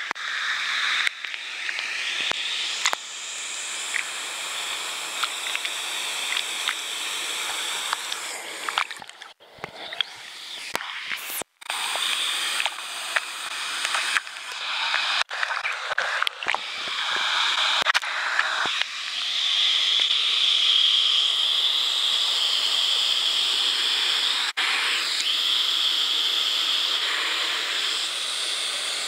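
Waterfall pouring into a pool: a steady hiss of rushing water, with a couple of brief dropouts about ten seconds in.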